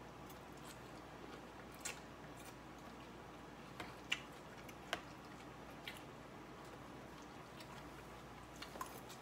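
A person chewing a mouthful of salad, with a few scattered sharp clicks of a fork against the salad container, over a faint steady low hum.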